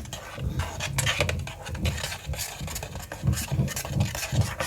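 Spoon stirring a thick meat-and-oat mixture in a dish, with irregular scrapes and knocks against the dish.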